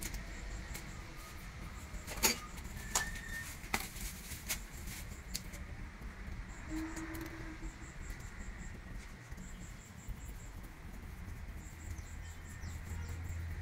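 Small plastic plumbing fittings being handled, with a few sharp clicks and taps in the first few seconds over faint high chirping.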